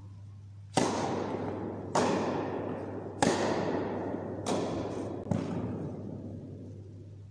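Tennis rally: rackets striking the ball five times, sharp hits roughly a second apart, with the last two closer together. Each hit rings on in the long echo of an indoor tennis hall.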